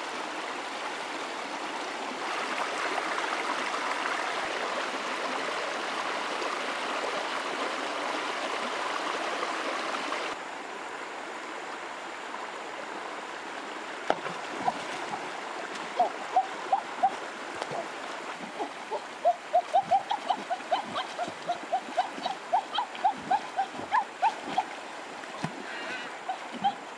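Shallow stream water running over stones. After about ten seconds the flow drops to a quieter background, and from about fourteen seconds on come many quick splashes and plops, a few each second, as a person thrashes through the shallows grabbing at a fish.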